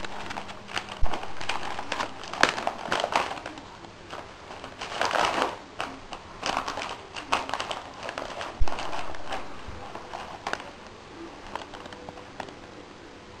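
A dog rummaging in a fabric Christmas stocking with its muzzle, crinkling and rustling the plastic-wrapped items inside in irregular bursts with scattered clicks.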